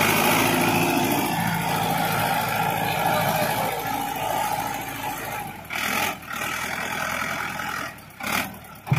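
Mahindra Arjun tractor's diesel engine running steadily. After about five and a half seconds the sound thins out and breaks up with a few short dips.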